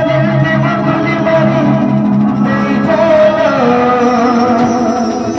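Live band music: a man singing into a handheld microphone while the band's instruments play a sustained melody with him.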